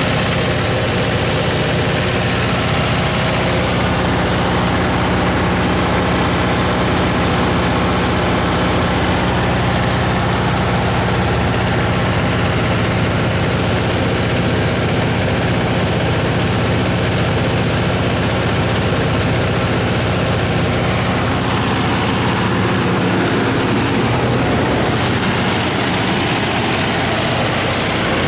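Perkins 1004-4TG four-cylinder turbocharged diesel engine of a 75 kW generator set running steadily at constant speed.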